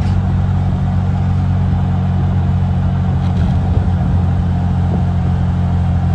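Auto-rickshaw's engine running steadily at cruising speed, heard from inside the cabin, with road noise.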